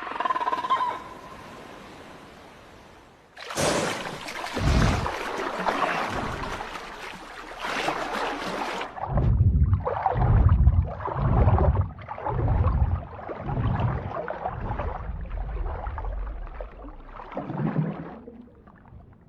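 Water splashing and sloshing around large animals swimming. There is a dense rush of water from a few seconds in, and then, through the second half, a run of deep, heavy surges about once a second.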